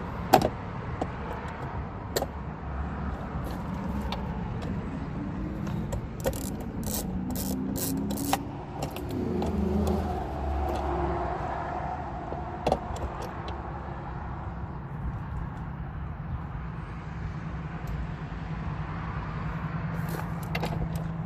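Hand tools working on the door-panel fasteners of a Ford F150: scattered sharp metallic clicks, with a quick run of even clicks partway through. A vehicle passes in the middle, and a steady low engine hum sets in about halfway.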